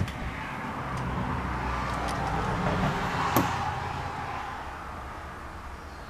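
A road vehicle passing by: a noise with a low hum that swells, peaks about three seconds in and then fades away. There is a sharp click at the start and another at the peak.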